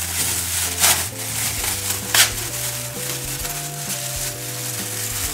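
Plastic packaging of thin Armenian lavash crinkling and rustling as the flatbread sheets are pulled out of it, with two sharper crackles about one and two seconds in, over background music.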